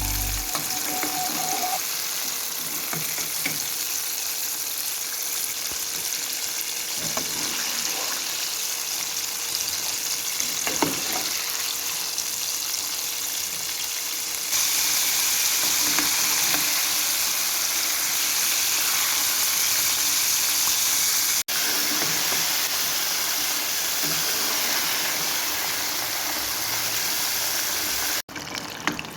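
Food deep-frying in hot oil, a steady sizzle that grows louder about halfway through.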